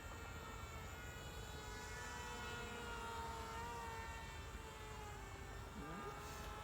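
Model 740 toy remote-control plane's small electric motor and propeller buzzing in flight, a faint thin whine whose pitch drifts slowly downward.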